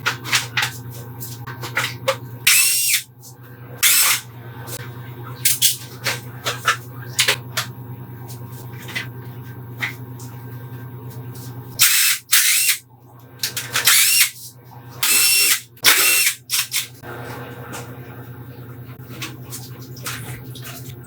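Workshop power-tool work: a steady low hum throughout, broken by repeated short, loud hissing bursts, several in a cluster over the last third.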